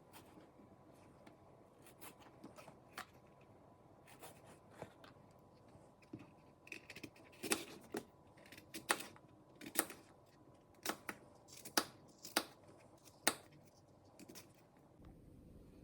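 Close-up handling sounds: faint scattered rustles and taps, then a run of about a dozen sharp, short clicks spread over some six seconds.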